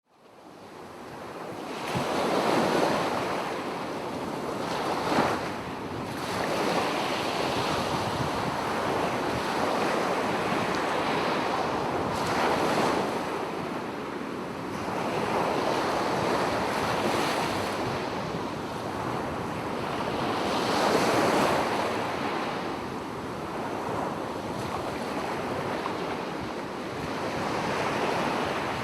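Small sea waves lapping and washing on a shore, swelling and ebbing every few seconds. The sound fades in over the first two seconds.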